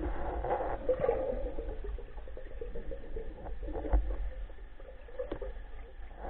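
Water sloshing and splashing, with a low rumble and a few short knocks, the loudest about four seconds in.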